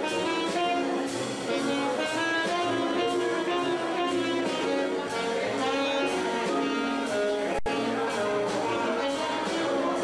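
Live jazz combo playing: a saxophone carries the melody over upright bass and a drum kit keeping time on the cymbals. The sound drops out for a split second about three-quarters of the way through.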